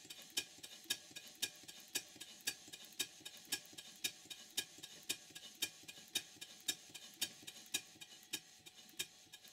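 Stuart 5A model steam engine running slowly, with a light, regular mechanical ticking about twice a second.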